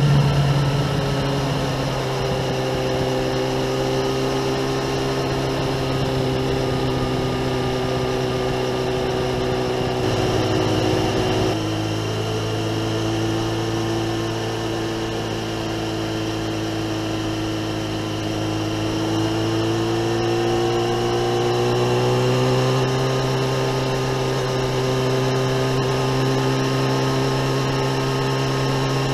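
Kawasaki ZX-9R inline-four engine through a Remus aftermarket exhaust, running at steady cruising revs. The note drops about ten seconds in, then climbs slowly as the bike accelerates toward the end.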